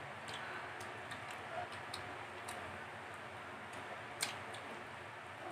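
Eating sounds: irregular small wet clicks and smacks of chewing and of fingers picking at rice and food, over a steady background noise, with one sharper click about four seconds in.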